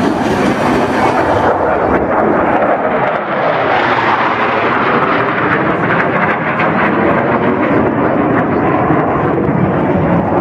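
Blue Angels F/A-18 Hornet jet flying past, a steady, loud roar of jet engine noise that grows brighter and harsher about four seconds in.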